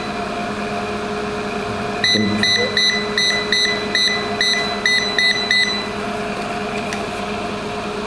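Universal AC control board's buzzer giving about ten short, high beeps in quick succession, roughly three a second, starting about two seconds in. Each beep answers a remote-control button press as the set temperature is stepped up to 30. A steady hum from the running setup sits underneath.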